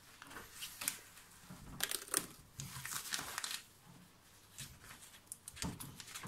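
Protective plastic film being peeled off a stainless steel sheet by gloved hands, crinkling in irregular bursts.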